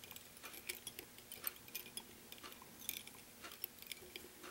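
Faint, irregular small ticks and clicks from thread being wrapped onto a fly-tying hook from a bobbin.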